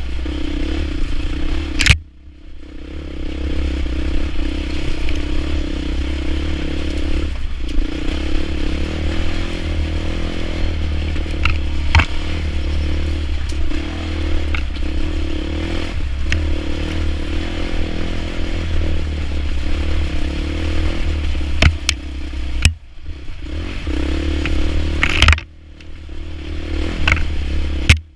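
Off-road motorcycle engine running at steady revs while the bike clatters and scrapes over the rocks of a wet, rutted trail. Several sharp knocks come from the wheels and suspension hitting rocks, and after the loudest ones the sound briefly drops away.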